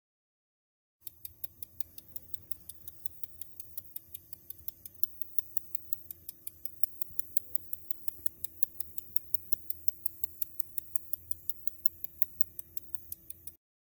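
Wine Enthusiast 280-03-01 wine cooler clicking rapidly and evenly, about five clicks a second, over a faint steady hum. The clicking is the fault noise that came with the cooler stopping cooling.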